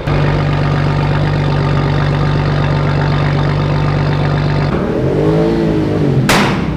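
Modified car engine held at a steady rev for about four and a half seconds, then dropping and blipped up and down once, followed by a loud sharp crack near the end.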